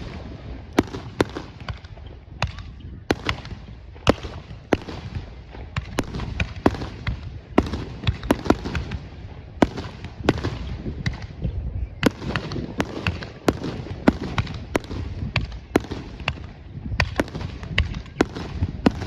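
Fireworks display: aerial shells and crackling effects bursting in an uneven, rapid string of sharp bangs and pops, two or three a second, over a steady low rumble.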